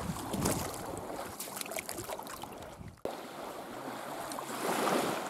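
Small waves lapping at the shore against the bank and driftwood, with wind on the microphone; the sound drops out for a moment about three seconds in.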